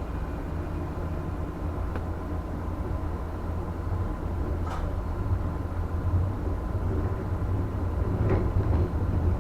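Steady low hum and rumble inside a JR West 115-series electric train, growing slowly louder over the last half, with a few short light knocks.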